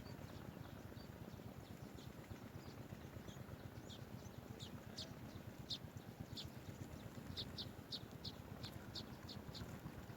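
Short, high bird chirps, sparse at first, then a quick run of about four a second near the end, over a steady low rumble.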